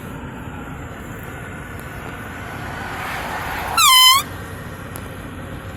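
One short blast, about half a second long, from a handheld canned air horn about four seconds in, over steady road noise from inside a moving car.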